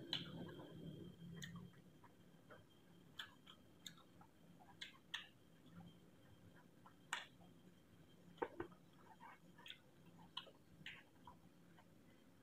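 Faint eating sounds: chewing, and a dozen or so scattered soft clicks of fingers working rice against a plate as food is eaten by hand.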